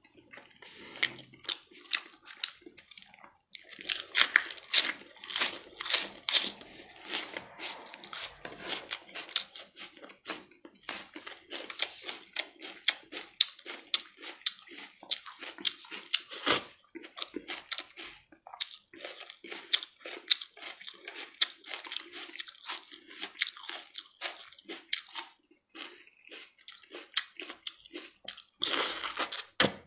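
A person chewing food: a dense, irregular run of mouth clicks and smacks, stopping briefly a few times.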